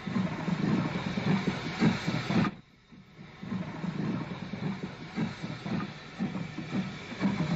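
Steam locomotive working, with steam hissing and irregular low exhaust beats. The sound drops out briefly about two and a half seconds in, then the train is heard again.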